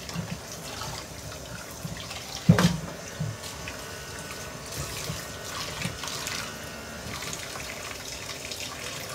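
Kitchen tap running into a steel pot in the sink while hands rinse things in it, with one sharp knock about two and a half seconds in.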